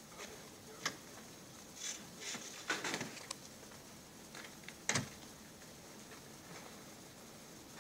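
Quiet interior of a slowly moving train carriage: a faint steady hiss with a few scattered clicks and rustles, the loudest cluster just before the middle and a sharp click about five seconds in.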